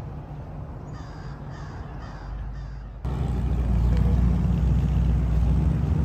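A crow cawing four times in quick succession over a low background hum. About three seconds in, a louder steady low rumble begins abruptly.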